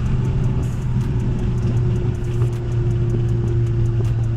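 Ford Fiesta ST's turbocharged 1.6-litre four-cylinder engine running steadily under way, heard from inside the cabin as a steady low drone whose pitch eases slightly down.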